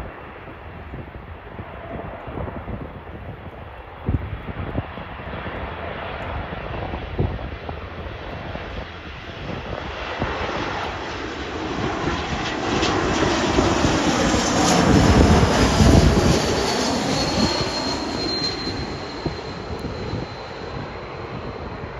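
Airbus A220's Pratt & Whitney PW1500G geared turbofan engines on landing approach. The sound grows louder as the jet passes closest, about 15 seconds in, with a whine that falls in pitch, then fades.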